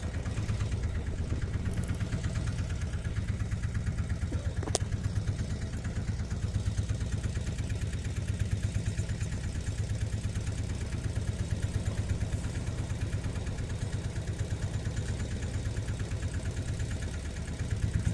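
Boat engine running steadily with a fast, even pulse. A single sharp click sounds about five seconds in.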